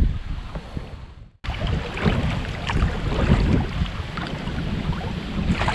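Wind buffeting the microphone, with water lapping and splashing from paddle strokes on a moving kayak. The sound drops out for an instant about a second and a half in, then goes on with many small irregular splashes and drips.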